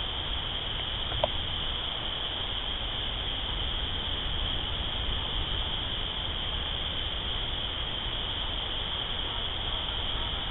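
A steady, high-pitched night chorus of calling insects or frogs over low background noise, with one short, sharp sound about a second in.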